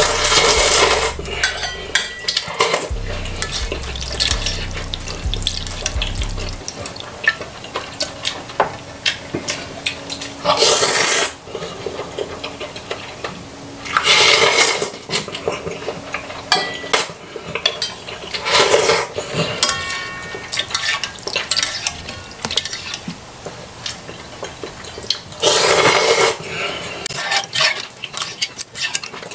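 A person slurping instant noodle soup: five loud slurps of noodles and broth, each about a second long and several seconds apart. Between them, a metal fork clinks and scrapes against a stainless steel bowl.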